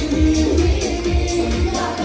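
Loud dance music with a steady, heavy bass beat.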